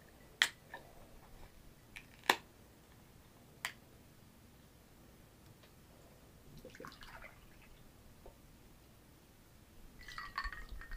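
Sharp clicks and taps, three of them in the first four seconds, as a small can of pineapple juice is handled and opened, then a brief pour of juice near the end.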